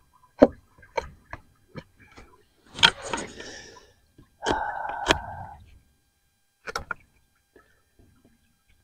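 Scattered metallic clinks and knocks of hand tools and parts being handled in a car's engine bay, with a short rustle about three seconds in and a brief squeaky rub of parts about four and a half seconds in.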